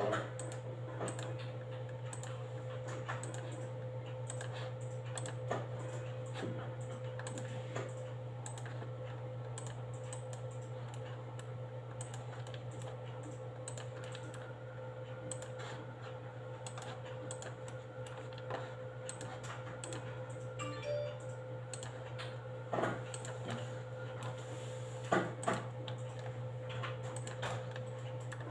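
Scattered clicks of a computer mouse and keyboard while CAD edges are selected, over a steady low hum.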